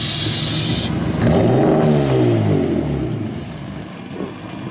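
A loud steady hiss cuts off about a second in. Then the engine of a lowered Nissan Skyline C10 hardtop is revved once, its pitch rising and falling back over about two seconds.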